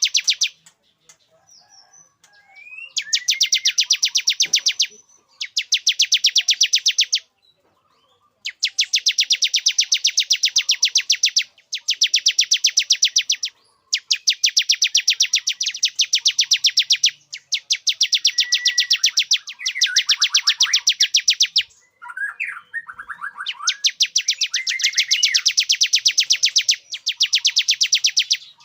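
Male bar-winged prinia (ciblek) singing its courtship lure song. It gives long bursts of very rapid, high repeated notes, each burst lasting one to three seconds, about eight times with short pauses between, and softer chirps in the gaps.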